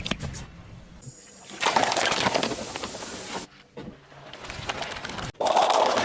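Objects being crushed with a dense crackling crunch, in two loud bursts of about two seconds each, the first ending abruptly; a few light clicks come before them.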